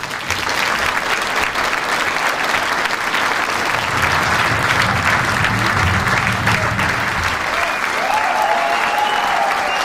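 Theatre audience applauding steadily, with a few voices calling out near the end.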